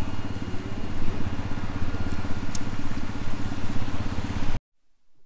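Boat engine running steadily with a fast pulsing beat, under a hiss of wind and water. It cuts off abruptly about four and a half seconds in.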